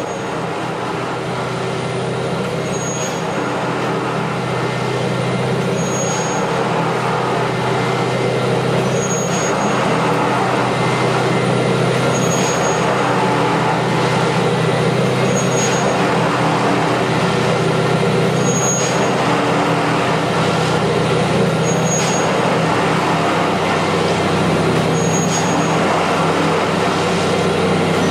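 Sound module of a Liliput model Matisa tamping machine playing the recorded engine of the original tamper through the model's small speaker. It runs steadily and grows a little louder over the first ten seconds, with a short high pip about every three seconds.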